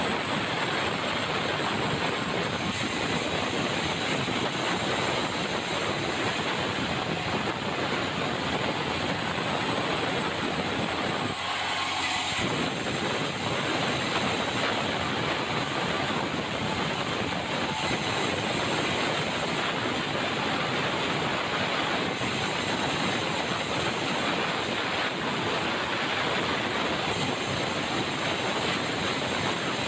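Sawmill running, with a steady loud noise of the saw working through red meranti timber; the sound shifts briefly about twelve seconds in.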